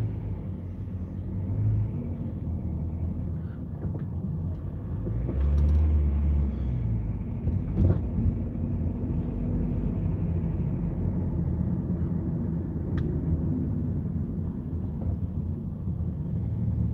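Steady low rumble of a car driving, heard from inside the cabin, with a louder swell about halfway through and a short knock just after it.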